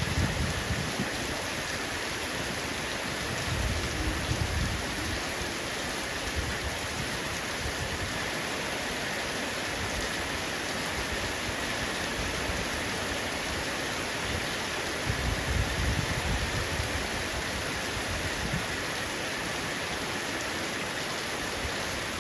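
Heavy rain falling steadily on a roof, a dense even hiss. A few short low rumbles rise under it, near the start, around four seconds in and around sixteen seconds in.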